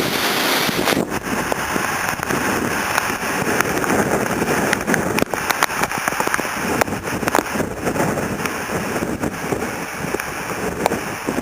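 Hurricane wind buffeting the microphone with rain falling, a steady rushing noise broken by many scattered sharp ticks.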